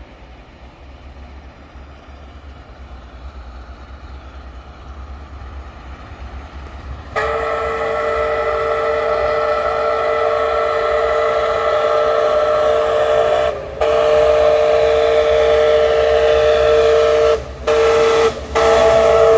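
Canadian Pacific 2816's steam whistle sounding a loud chord of several notes, blown long, long, short, long: the grade-crossing signal as the locomotive reaches the crossing. Before the whistle starts, about seven seconds in, the approaching train's rumble grows steadily louder.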